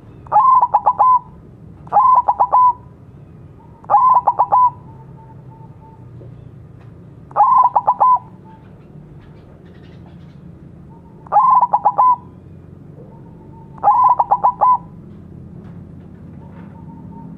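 White zebra dove (perkutut) singing: six short phrases of quick staccato coos, each under a second long, at irregular gaps of two to four seconds.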